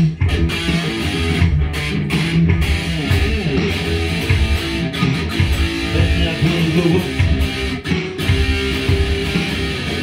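Electric guitar played through an amplifier, a continuous instrumental passage with no singing.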